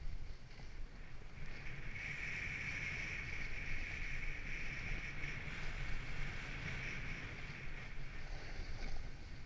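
Sled sliding down a packed snow run: a continuous rushing hiss of the base over the snow, with low rumbling wind on the microphone. A higher hiss is strongest from about a second and a half in until near the end.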